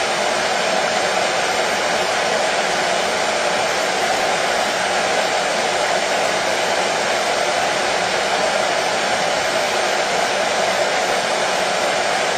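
Hair dryer running steadily: an even, unbroken rush of blown air with the motor's hum, holding one level throughout.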